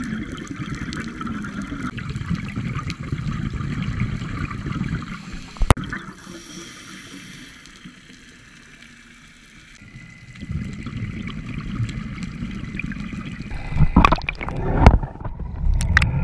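Muffled underwater gurgling and rumbling of a scuba diver's exhaled bubbles, heard through the camera housing. It eases off for a few seconds midway, with a sharp knock about six seconds in and loud knocks near the end.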